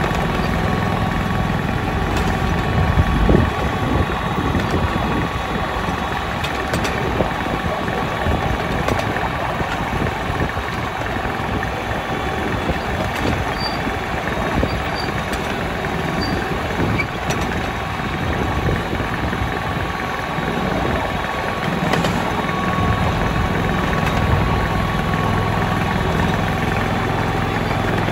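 Small petrol engine of a 7.25-inch gauge ride-on miniature locomotive, modelled on a Victorian Railways T Class diesel, running steadily as it hauls the train, heard from the carriage right behind it. A louder bump comes about three seconds in, with a few faint clicks from the running gear over the track.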